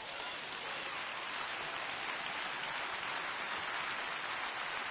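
Large congregation applauding steadily, a dense even clatter of many hands.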